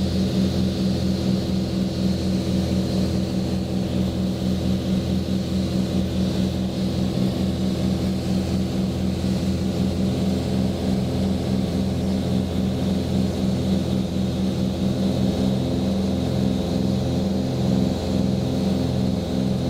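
Cessna 310's twin piston engines and propellers heard from inside the cockpit, a steady drone with a regular throbbing beat. On approach the propellers are in fine pitch for maximum RPM, which is what makes them this loud.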